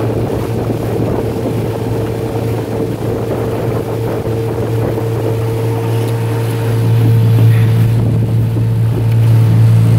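Motorboat engine running at cruising speed: a steady drone with a low hum and a higher whine, over a rush of wind and water. It gets somewhat louder about seven seconds in.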